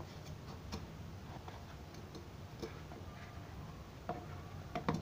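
Potting mix of sand, garden soil and cow-dung compost being tipped from a clay dish into a small terracotta pot: faint scattered ticks and light taps, with a couple of louder knocks near the end.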